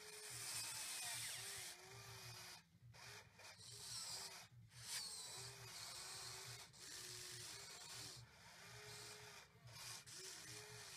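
Radio-controlled model excavator at work: its small motors whine in short starts and stops as the boom and bucket move, over soil scraping and rasping under the bucket.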